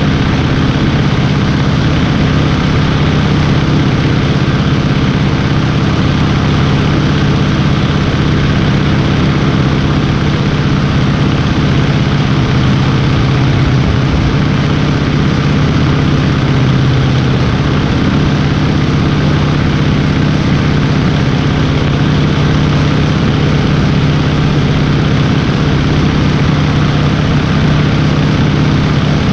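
Stearman biplane's radial engine and propeller running steadily in level flight, one unbroken loud drone.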